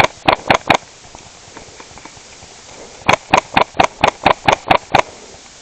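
Daytona gas-powered airsoft rifle firing quick single shots, each a sharp crack. There are four shots at the start, then a pause of about two seconds, then a string of about nine shots at roughly four to five a second.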